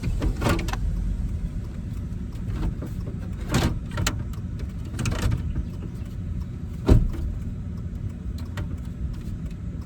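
Plastic dash trim of a 2005 Chevy 2500HD being pushed and knocked into place: a series of clunks and knocks, the loudest about seven seconds in, over a steady low rumble.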